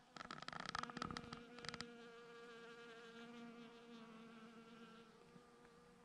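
A flying insect buzzing close by, a steady hum that sets in about two seconds in and weakens near the end. Over the first two seconds, irregular footstep crunches of a walker on the trail.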